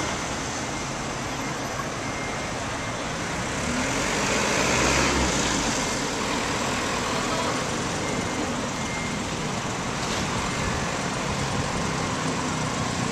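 Steady road traffic noise at a busy city crossing. It swells about five seconds in as a box truck drives past close by.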